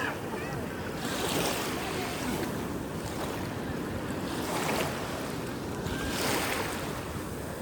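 Sea waves washing onto the shore: a continuous rush of surf that swells up three times as waves break.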